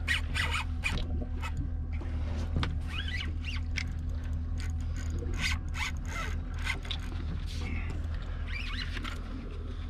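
Spinning reel being cranked under heavy load against a big fish on the line, with squeaks and scattered sharp clicks from the reel and rod, over a steady low hum.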